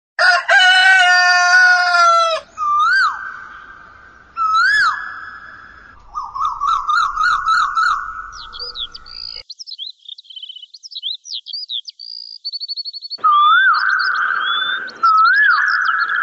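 A rooster crows once, a long call of about two seconds, followed by a string of other animal calls. These are repeated rising-and-falling cries and a fast wavering call, with a stretch of high bird chirps and twittering in the middle.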